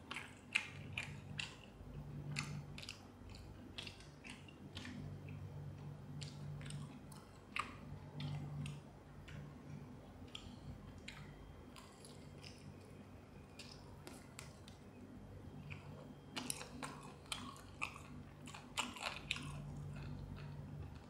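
A person chewing and biting into crispy fried chicken, the breading crunching in irregular short clicks that come thickest near the end.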